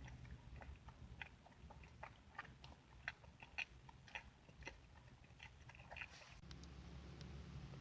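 A person chewing and biting food close to the microphone: a run of small wet mouth clicks and smacks, several a second, over a faint low hum. The clicks stop about six and a half seconds in.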